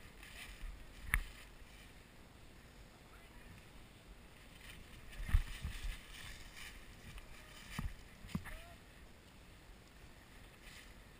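Footsteps and gear rustling in dry leaf litter, with a few sharp clicks and knocks: one about a second in, a louder cluster about five seconds in, and two more near eight seconds.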